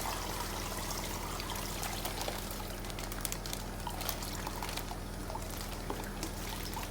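Water pouring and trickling steadily as dirty transport-bag water is drained off a newly arrived fish, with scattered small drips and splashes.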